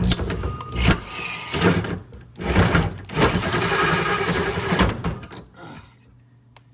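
Power drill boring into the sheet-steel strut tower, running in uneven surges as it bites into the metal, then stopping about five seconds in. A faint steady hum remains after it stops.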